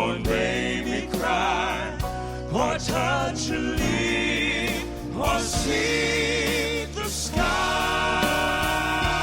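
Southern gospel male vocal quartet singing with band accompaniment: wordless vocal runs with heavy vibrato, then a full chord held from about seven seconds in.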